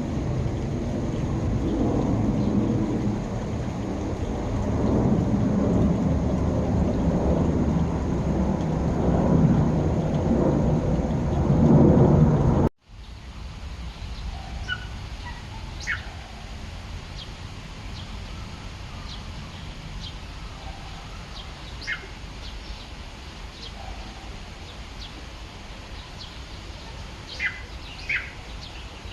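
A loud, low rumbling noise for about the first dozen seconds, ending abruptly. Then a quieter outdoor background with scattered short bird calls, two of them close together near the end.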